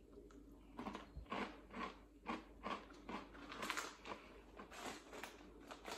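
Chewing a hard, crunchy Jacob's Mini Cheddars Nibbly cheese cracker: a run of crisp crunches, about three a second, starting about a second in.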